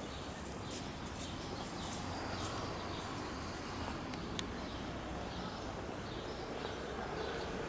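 Outdoor ambience: a steady low background rumble, with small birds chirping now and then.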